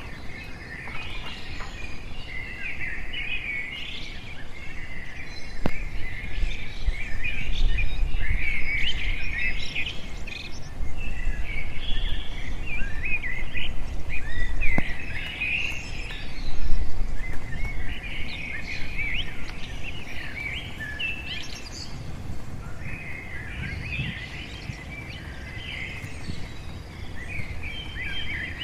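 Many small birds chirping and calling in clusters of quick notes throughout, over a low rumble that is loudest through the middle.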